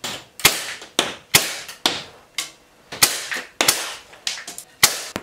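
Air pistol firing steel BBs: about nine sharp cracks in quick, uneven succession, each with a short ring, and fainter ticks in between.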